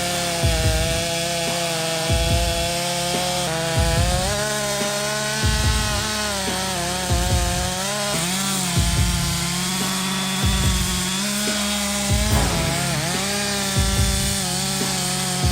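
A chainsaw running and cutting wood, its pitch dipping briefly now and then under load. Background music with a low beat about every second and a half plays throughout.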